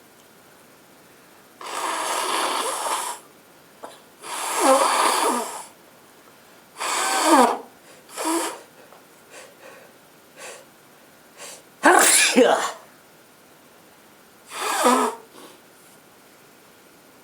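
A woman with a cold sneezing and blowing her nose into a handkerchief: about six loud bursts over a dozen seconds, with short sniffs between them.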